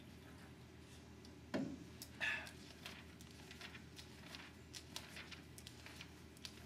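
Quiet room tone with a few soft handling sounds: a soft knock about a second and a half in, as a drink can is set down on a wooden table, then faint rustles and clicks as book pages are turned.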